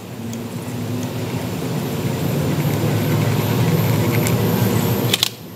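A steady low mechanical rumble, like a running engine, growing gradually louder and cutting off abruptly about five seconds in.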